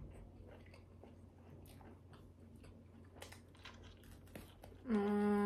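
Faint mouth clicks and chewing while eating a cheese-filled sausage, then near the end a loud hummed "mmm" held at a steady pitch.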